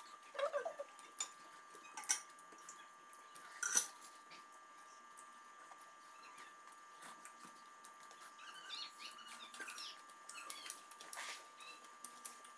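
Quiet sounds of eating by hand: small clicks and smacks of chewing and of fingers working rice, with a few short squeaky sounds, the clearest near the start. A faint steady high hum runs underneath.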